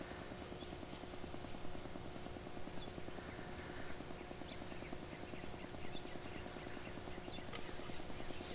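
Faint outdoor background with a steady low electronic hum and scattered soft, high ticks and chirps, growing busier about halfway through.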